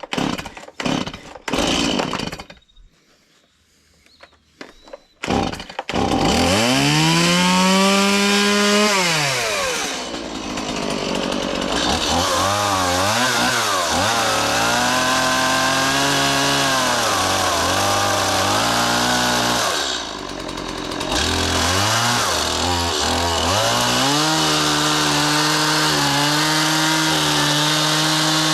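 After a few knocks, a gas chainsaw starts about five seconds in and revs up. It then cuts through timber, its pitch sagging and recovering under load and easing off twice. Near the end it holds a steady high rev.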